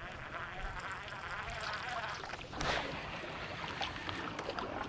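Steady wind and water noise around a small fishing boat, with a brief louder rush a little past halfway.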